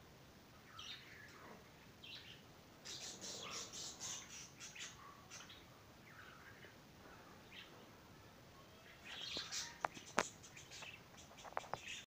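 Budgerigars chirping and chattering in bursts, busiest about three seconds in and again near the end. A few sharp clicks come near the end.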